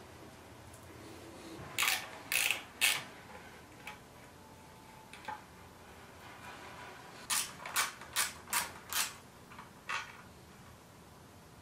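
Hand ratchet wrench clicking in short bursts: three back-swings about two seconds in, then five more about seven to nine seconds in. It is loosening the front fender and brake line bracket bolts on the fork legs.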